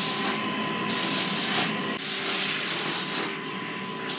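Vacuum cleaner running while its nozzle is worked over a horse's coat: a steady whine under a rushing hiss that swells and fades every second or so.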